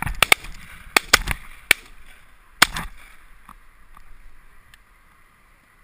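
Shotguns firing at ducks flying over a field: about seven sharp cracks in the first three seconds, some coming in quick pairs as if from more than one gun. The loudest crack comes last, just under three seconds in, with a short echo after it.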